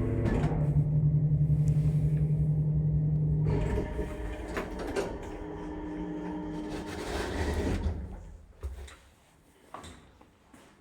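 A 1970 Strommashina elevator's very noisy AS62 drive running with a loud, steady hum. The hum changes about four seconds in, dies away near eight seconds as the lift stops, and a few sharp clicks follow.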